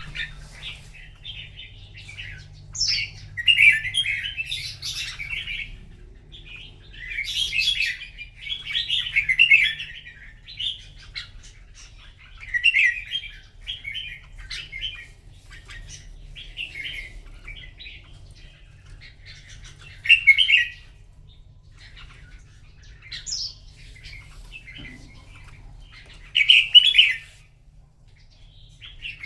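Red-whiskered bulbuls singing competitively, short bright chirping phrases repeated every few seconds, several louder bursts among them.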